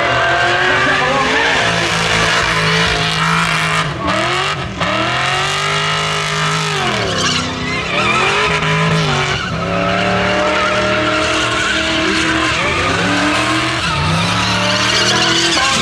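Holden Commodore ute's engine revving hard and dipping repeatedly while its rear tyres spin and squeal in a burnout. The revs drop and climb again a couple of times, deepest about six to seven seconds in.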